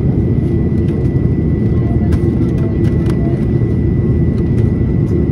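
Steady in-flight cabin noise of a jet airliner heard from a window seat: the engines and the airflow past the fuselage make a loud, even noise, with a thin steady high tone running above it.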